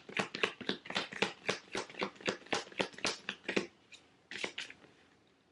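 A deck of tarot cards shuffled by hand, a quick run of papery slaps about six a second that stops after about three and a half seconds, followed by a brief rustle as a card is drawn.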